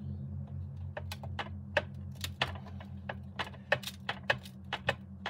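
Quick, irregular sharp taps and crunches as fingers pack casting sand tightly into a wooden moulding flask, over a steady low hum.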